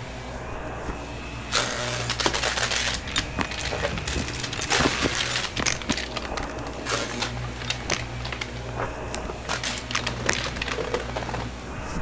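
Shark upright vacuum cleaner running on carpet with a steady hum, sucking up small bits of debris that click and crackle as they rattle up through it. The crackling is densest in the first few seconds.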